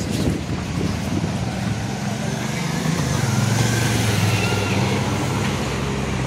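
Street traffic: a motor vehicle's engine hum that grows louder about halfway through, over a steady wash of road noise.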